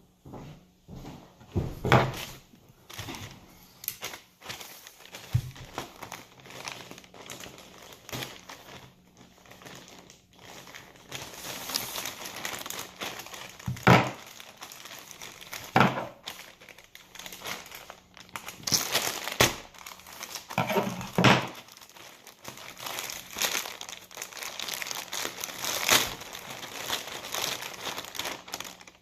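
Plastic packaging crinkling and rustling as a mailed package is opened by hand, with sharp crackles and handling knocks; the crinkling becomes denser and louder about eleven seconds in.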